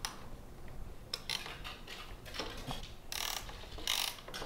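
Hand ratchet wrench clicking in several short runs as it loosens the acorn nuts on a motorcycle's turn-signal bracket.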